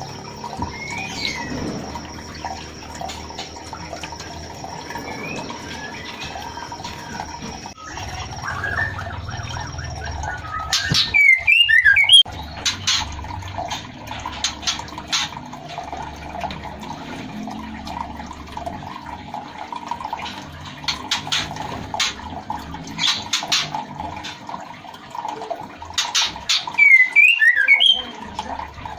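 White-rumped shama calling: two loud bursts of quick, gliding whistled notes, about eleven seconds in and again near the end, with sharp clicking notes scattered between. In this breeding setting the calls are taken for a female calling to a male, a sign that she is ready to mate.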